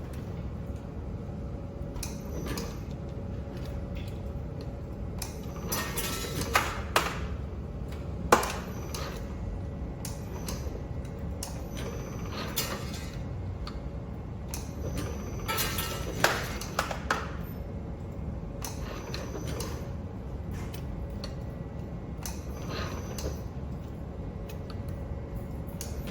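Semi-automatic zipper slider assembly machine punching auto-lock four-punch sliders over a steady motor hum. Each stroke is triggered by the operator's foot switch, giving sharp mechanical clacks at irregular intervals of a few seconds.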